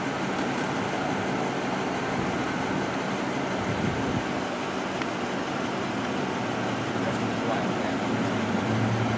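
Steady roadside noise of idling vehicle engines and traffic, a low engine hum under an even rush of road noise; the hum grows louder near the end.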